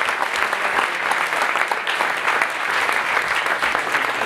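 Audience applauding: many hands clapping at once, holding a steady level throughout.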